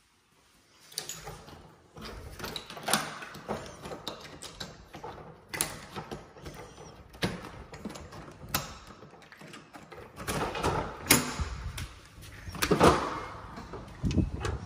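A house's back door being unlocked and opened: a string of clicks, knocks and rattles from its lock and handle, with the loudest cluster just before the door swings open near the end.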